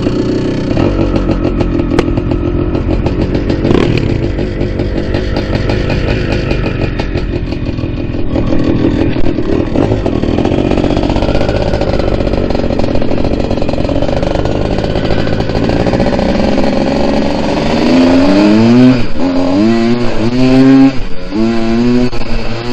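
Two-stroke dirt bike engines running, then one accelerates away: its pitch rises and drops back about four times as it shifts up through the gears near the end.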